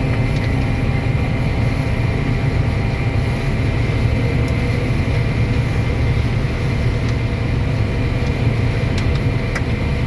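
Combine harvester running steadily while harvesting corn: a continuous low machine drone with several steady whining tones over it.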